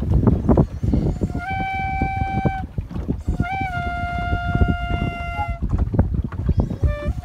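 A flute played in long held notes: one of about a second, then one of about two seconds, each with a small lift in pitch as it starts, and a third beginning near the end. Under it runs a steady low rumble of the moving boat and wind.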